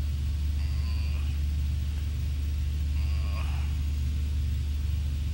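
A steady low hum or rumble at an even level, with faint short higher sounds about a second in and again about three seconds in.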